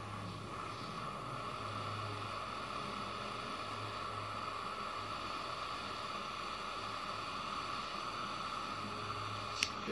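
Small handheld butane torch burning with a steady hiss while its flame preheats a spot on thin aluminum sheet, with a sharp click near the end.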